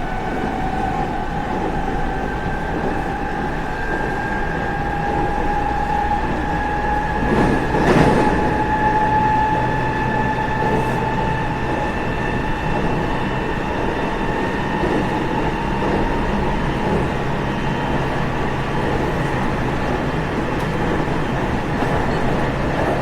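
Onboard running sound of a JR West 207 series 1000-series train with a Toshiba GTO VVVF inverter: the inverter and traction motor whine rises slowly in pitch over the steady rumble of the wheels, then fades. There is a single sharp knock about eight seconds in.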